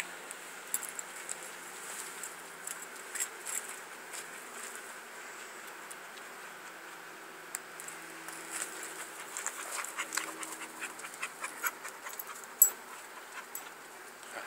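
Dog panting, with many small scattered clicks and one sharp louder click near the end.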